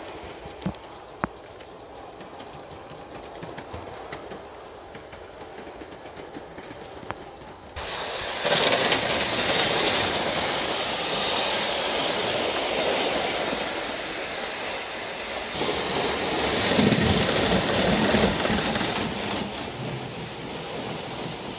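Aster JNR C57 live steam model locomotive running with its coaches: a few light clicks at first, then from about eight seconds in a loud, steady hissing noise as it runs close, loudest a little later.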